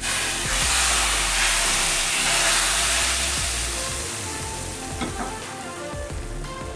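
Hot oil sizzling with garlic, cumin seeds and dried red chillies in a small pan, a tadka for kadhi. The hiss starts suddenly, is loudest in the first few seconds, then fades gradually.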